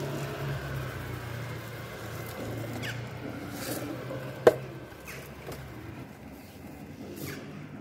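Steady low hum of street traffic, with a few faint bird chirps and one sharp click about halfway through.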